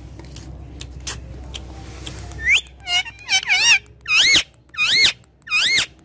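Indian ringneck parakeet giving about six shrill calls in quick succession, starting about two and a half seconds in, each call sweeping up and down in pitch.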